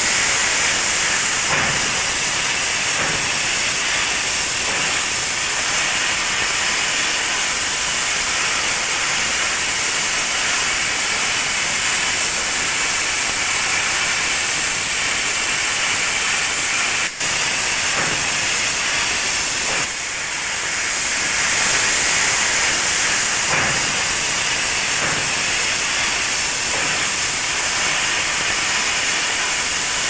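Steam train running steadily: a continuous hiss of steam, with a brief cut about seventeen seconds in.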